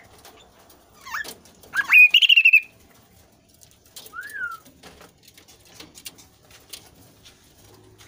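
Chestnut-capped babbler (kasu-kasu) calling: a rising note about a second in, then a loud call of quick upward sweeps running into a short warbled trill, and a single softer rise-and-fall note about four seconds in.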